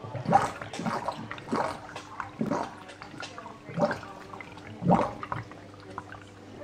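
Water gurgling and splashing in a plastic hydroponics reservoir, six or so uneven gurgles over a few seconds, with the steady low hum of a small submersible pump underneath.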